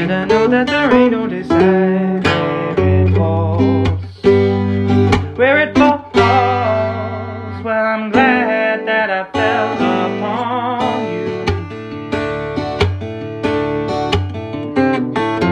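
Acoustic guitar strummed in a steady rhythm, with a wavering melody carried over it that drops away about two-thirds of the way through, leaving the strummed chords.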